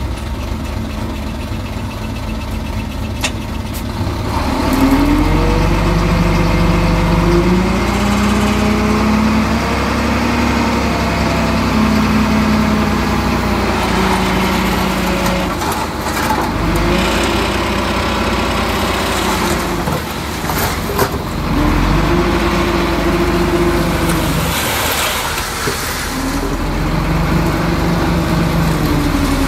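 Heavy construction-machine diesel engine revving up and down in repeated swells every four to five seconds, as when working under load, with a few brief clanks.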